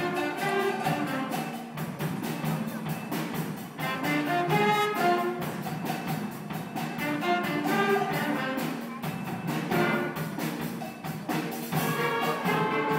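A student band playing live, saxophones and other horns carrying the tune over a steady drum beat.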